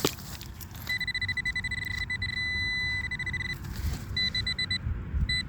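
Metal detector giving a steady high electronic tone for a couple of seconds, then quick pulsing beeps: it is signalling a metal target, here a buckle, still in the dig hole. A short thump comes at the very start.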